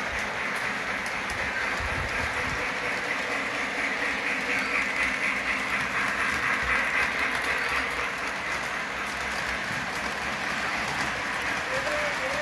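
Lionel O-gauge model trains running on three-rail track: a steady whirring rumble of wheels and motors. Near the end a single held tone begins.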